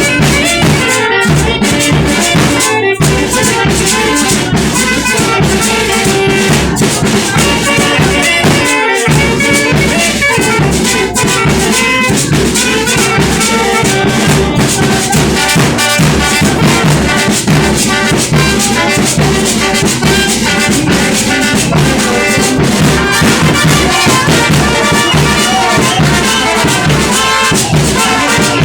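Loud brass band music with a steady drum beat, briefly dropping out twice.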